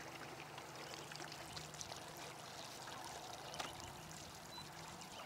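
Faint trickling water, with a light knock about three and a half seconds in.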